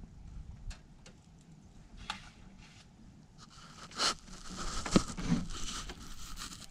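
Handling noise from a chainsaw being worked in a utility vehicle's cargo bed: scattered light clicks and knocks, with a louder stretch of scraping and rustling from about four to five and a half seconds in. The saw's engine is not running.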